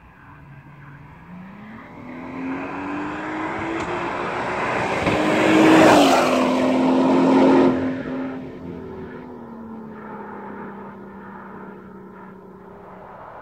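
Turbocharged VW Scirocco R36 (3.6-litre VR6) accelerating hard toward and past, its engine note climbing in pitch as it approaches. It is loudest as it passes about six seconds in, where the pitch drops, then fades as it drives away.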